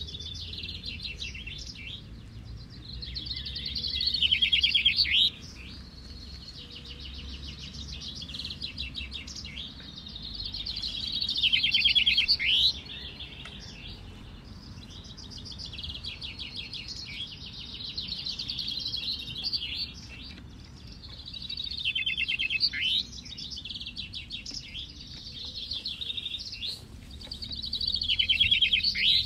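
Several caged male common chaffinches singing their song over and over in a song-counting contest. Each song is a rapid trill that grows louder and ends in a downward flourish before stopping sharply. Four loud songs come from the nearest birds, with fainter songs from other finches in between, over a low background rumble.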